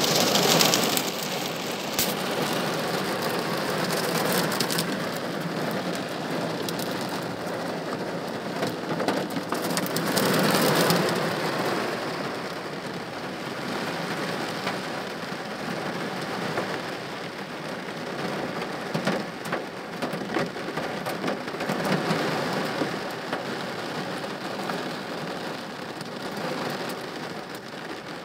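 Heavy rain pattering on a car's roof and windshield, heard from inside the car as a steady wash of drops. It swells louder briefly at the start and again about ten seconds in.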